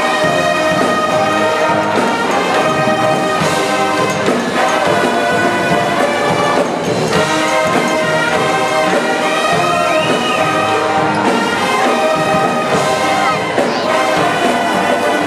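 College pep band playing loudly without a break: a brass section of trumpets, trombones, saxophones and sousaphones over a drum kit.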